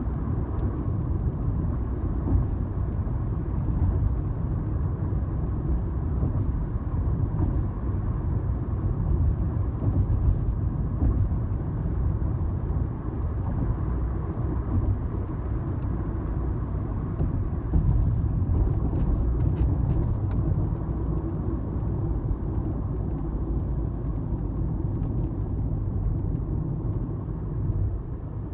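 Steady road noise of a car driving at speed, heard inside the cabin: a low rumble of tyres, engine and wind.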